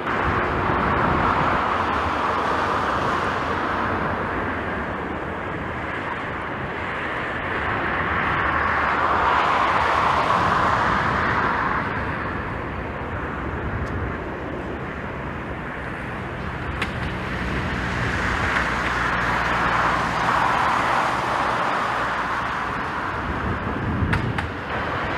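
Outdoor rush of strong, gusty wind with distant engine noise underneath, swelling and easing three times.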